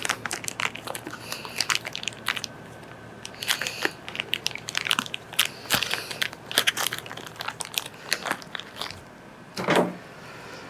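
Irregular small clicks and ticks of a metal circlip and hand tools being handled while a new circlip is readied for a Honda CT110 fork tube. A louder knock comes near the end.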